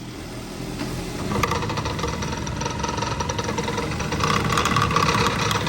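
2014 Jeep Cherokee running and rolling in gear, with a rough, rapid mechanical knocking and dragging from the drivetrain. It grows louder about a second and a half in. The mechanic diagnoses a bad front differential/transfer case.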